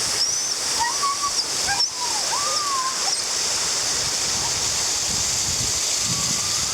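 Waterfall rushing steadily, with a dog whining anxiously in high, gliding whines during the first three seconds or so.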